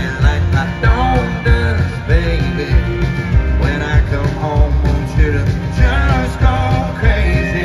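Live country band playing with a male lead vocal singing over acoustic guitar, keyboard and drums keeping a steady beat.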